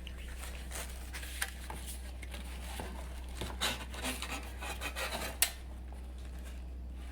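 Ceiling fan blades being handled: rubbing and scraping with scattered light clicks, and one sharp tap about five and a half seconds in.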